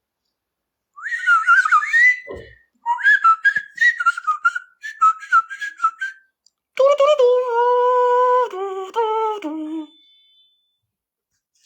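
Person whistling: a quick warbling run of notes for about five seconds, then a longer phrase of held notes that step down in pitch.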